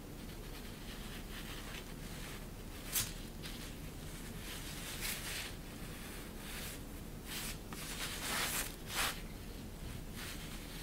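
Cat teaser wand and ribbon rustling against and under a sheet of shiny synthetic plaid fabric, in short scattered rustles. There is a sharp tick about three seconds in and a denser run of rustling around eight to nine seconds.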